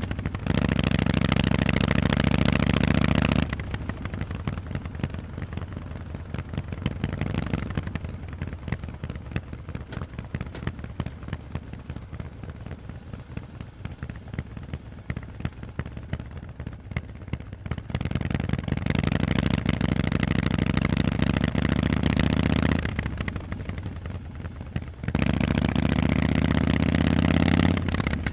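Harley-Davidson Forty-Eight's air-cooled V-twin running through loud Vance & Hines exhausts on the move. It pulls loud for the first few seconds, then drops back to a much quieter throttle for a long stretch. It opens up loud again just past halfway, eases briefly, and pulls loud once more near the end.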